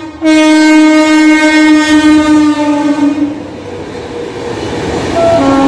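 Indian Railways express train's locomotive horn sounding one long blast of about three seconds as the train runs through the station, its pitch dipping slightly as the engine passes. The coaches then run past on the track, and a horn sounds again near the end.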